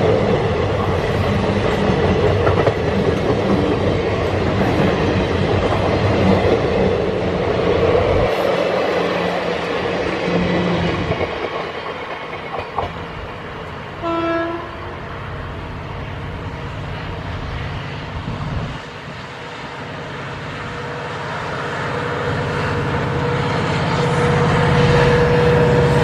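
Indian Railways passenger express running past at speed, its coaches' wheels rumbling and clattering on the rails, then easing off as the train draws away. A brief horn blast sounds about halfway. Over the last few seconds a low rumble with a steady tone grows louder.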